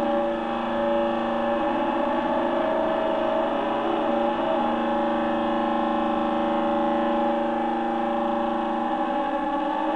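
Experimental electronic noise-drone music: several steady held tones layered into one sustained drone, with the lowest tone shifting near the end.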